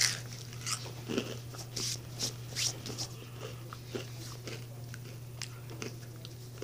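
Someone crunching and chewing Flaming Hot Cheetos: a run of short crisp crunches, thick for the first three seconds or so and then thinning to an occasional one. A steady low hum runs underneath.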